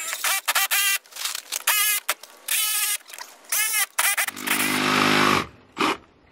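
Handheld cordless power drill working into the wall siding: a series of short trigger bursts with a squealing pitch that rises and falls, then a steadier run of about a second a little over four seconds in.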